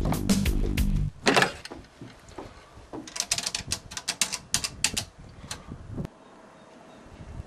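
Payphone keypad buttons pressed in a rapid run of about a dozen sharp clicks, a few seconds in. Before that, drum-kit music stops about a second in and a single loud knock follows.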